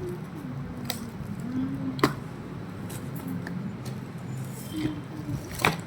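Three sharp clicks: one about a second in, a louder one about two seconds in and one near the end. Faint voices sound in the background throughout.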